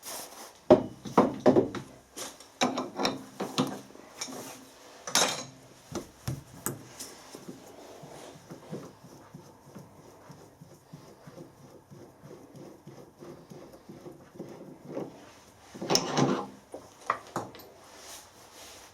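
Metal parts and tools being handled at a lathe: scattered clinks, knocks and scrapes, with louder clattering about five seconds in and again near the end.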